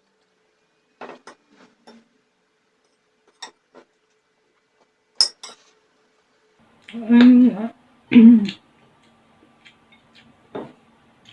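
Cutlery clicking and clinking against a plate during eating, with scattered light clicks and one sharp clink about five seconds in. Then come two short, loud sounds of a person's voice, about seven and eight seconds in.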